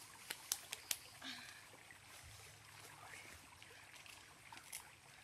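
Two dogs eating fish from a bowl, with a few sharp clicks and crunches of chewing in the first second, then faint background noise.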